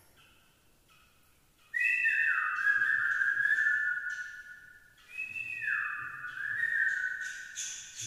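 A person whistling two long notes, each about three seconds. Each note slides down and is then held steady, the second rising back up near its end.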